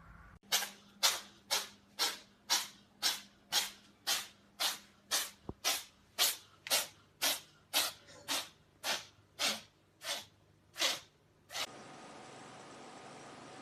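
A cat sneezing over and over in a long fit of about twenty short, sharp sneezes, roughly two a second, the last few coming a little further apart. A steady faint hiss follows near the end.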